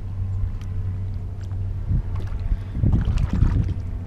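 Steady low rumble of wind on the microphone and water against a kayak hull. About three seconds in, a short, louder burst of splashing and knocking comes from handling a small snook in a rubber landing net beside the kayak.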